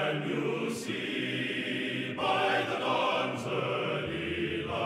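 Outro music with held chords that change about two seconds in.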